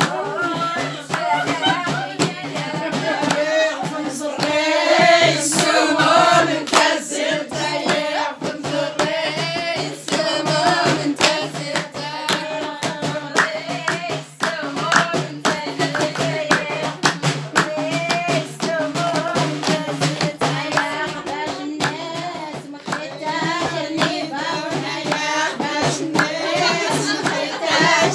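Amazigh folk song: voices singing together, with rhythmic hand clapping throughout.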